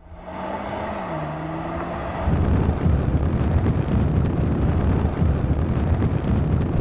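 A tuned BMW 3 Series accelerating flat out off the drag-race line. The engine note dips about a second in, then the sound gets much louder about two seconds in, with wind noise on top.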